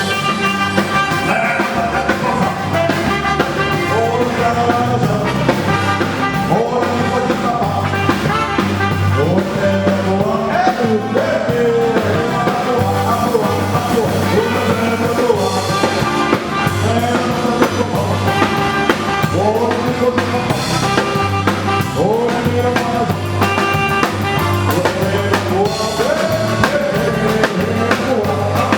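Band music playing steadily: a drum kit and a pulsing bass line under a melodic lead whose notes bend and slide.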